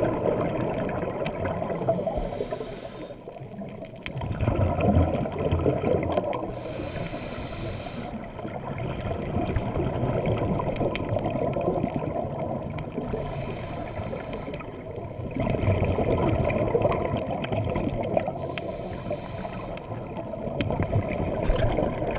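Underwater sound picked up by a camera in its waterproof housing: a muffled, churning rumble of water and bubbles that swells and fades, broken every five or six seconds by a short hiss.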